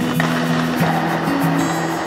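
Background music with a stepping melody over a kitchen blender running steadily, puréeing peeled Japanese yam pieces with water into yam milk.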